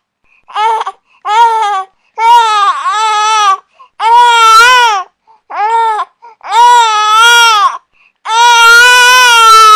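Infant crying: a string of about seven high-pitched wails, each half a second to a second and a half long, with short silent breaths between them.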